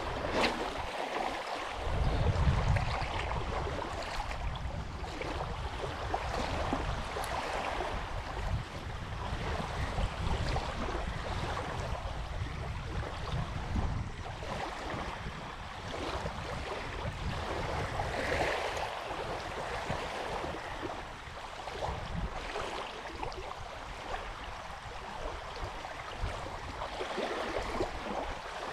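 Small waves lapping on a gravel shore, with wind rumbling on the microphone from about two seconds in.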